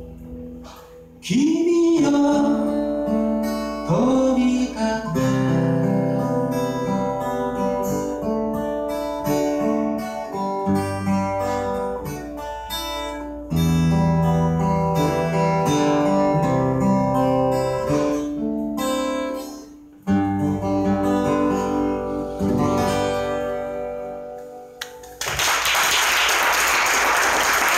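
A male singer singing to his own strummed and picked acoustic guitar, through a microphone. The song ends about 25 seconds in and the audience breaks into applause.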